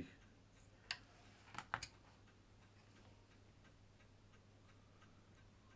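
Near silence with faint steady ticking, broken by a small click about a second in and a quick run of three light clicks just before two seconds: handling of the pocket watch as its dial is freed.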